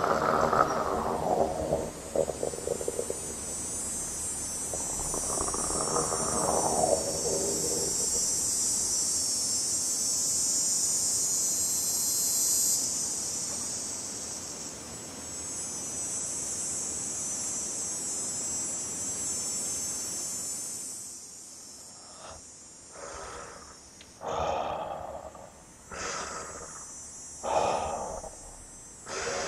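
Layered sound effects: a long moaning tone that rises and falls, heard twice, under a steady high hiss. After the hiss fades comes a run of short, breathy puffs about every one and a half seconds.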